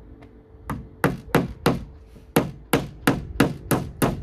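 Claw hammer driving a nail into a plywood board: about ten sharp blows, four in quick succession, a short pause, then a faster run of six.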